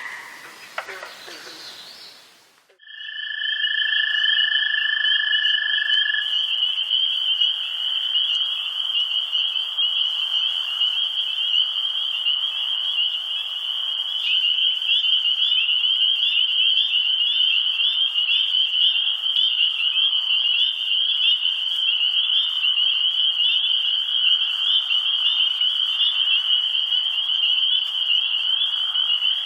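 A dense, steady chorus of high trilling animal calls, typical of frogs or insects on a night-time ambience track, starting about three seconds in after a short fade to near silence. A steady high tone runs alongside it for the first few seconds.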